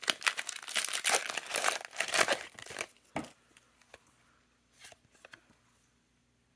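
Foil wrapper of a Pokémon TCG Scarlet & Violet 151 booster pack being torn open and crinkled, a dense crackle for about three seconds. After that, only a few faint handling sounds as the cards come out.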